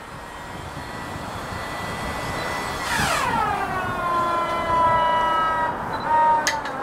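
Starter of an Il-14's Shvetsov ASh-82 radial engine whining at a steady high pitch and growing louder. About three seconds in the pitch drops sharply as the starter takes up the load and turns the cold engine over without firing it. The whine dies away near the end, followed by a click.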